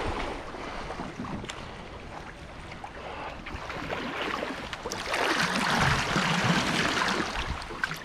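Rushing whitewater splashing around a wildwater racing canoe as it runs down the river, getting louder about five seconds in.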